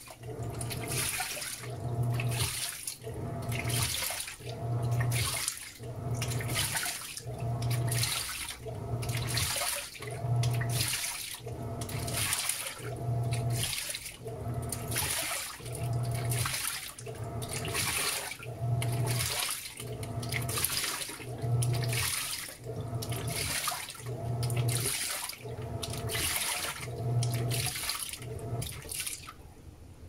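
Panasonic 16 kg top-load washing machine agitating a load of jeans in its final rinse: the pulsator motor hums and the water sloshes in steady strokes about once a second, stopping shortly before the end.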